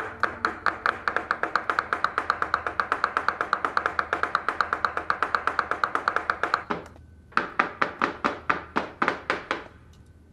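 Chef's knife chopping rapidly on a cutting board, about eight quick strokes a second; the strokes stop briefly about seven seconds in, resume, then turn faint near the end.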